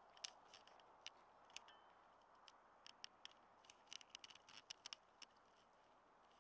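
Near silence with a soft steady hiss and many faint, irregular small clicks and ticks. The clicks come thickest about four to five seconds in.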